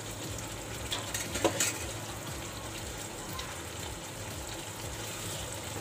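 Okra in a spiced yogurt gravy simmering in an uncovered kadai with a steady sizzle, and a few light clicks about a second in.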